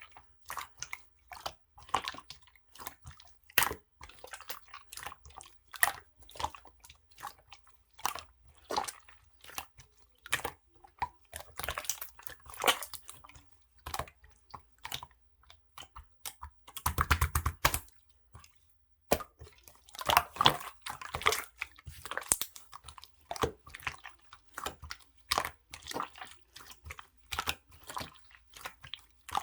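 Clear slime being squished and pressed by hand, giving irregular wet clicks and pops, with a denser, louder cluster of pops about 17 seconds in.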